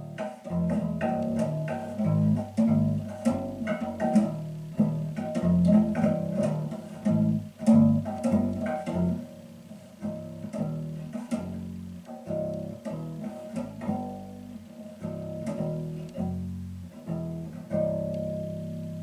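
Homemade fretless electric bass with an ammo-case body, plucked fingerstyle and played through a Fender combo amp: a line of single low notes, a few a second, some left to ring, with the last note held near the end.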